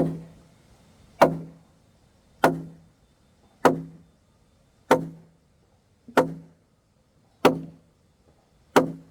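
A tool striking wood in a steady rhythm: eight hard knocks, about one every 1.25 seconds, each with a short low ringing after it.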